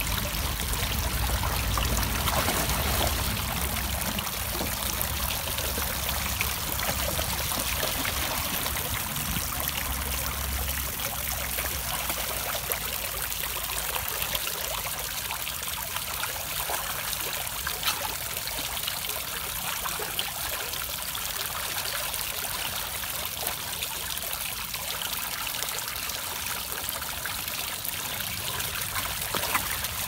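Water from a garden fountain spilling over the edge of its upper bowl into the stone basin below, a steady trickling splash.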